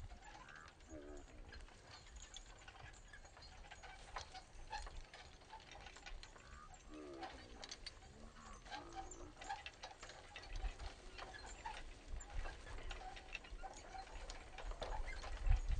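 Horse-drawn carriage pulled by a pair at a walk: a patter of small clicks and rattles from the carriage and harness with soft hoofbeats, growing louder near the end as the team comes closer.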